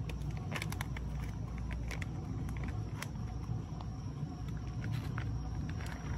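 Steady low outdoor rumble, like distant traffic, with scattered faint clicks and taps over it.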